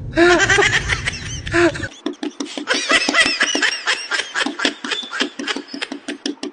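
Rapid high-pitched laughter in many short, quickly repeated bursts, over a low rumble that stops about two seconds in.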